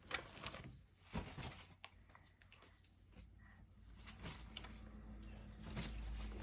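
Faint rustling and a scattered handful of light clicks and taps, as of small toys and packaging being handled.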